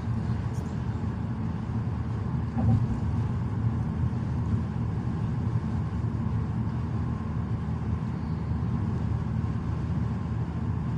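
Steady low rumble of tyre and engine noise inside a moving car's cabin, with one short thump a little under three seconds in.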